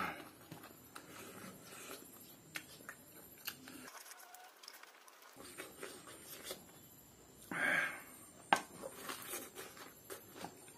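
Eating by hand at close range: scattered soft clicks and smacks of chewing, and of fingers working fried rice and leafy greens on a plate. A brief louder rustle comes a little past halfway.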